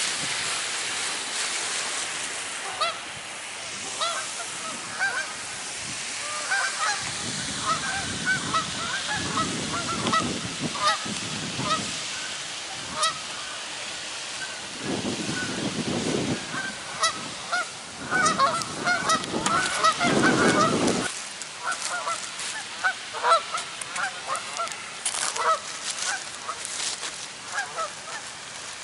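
A flock of geese honking, many short calls overlapping and continuing throughout. A low rushing noise comes and goes through the middle.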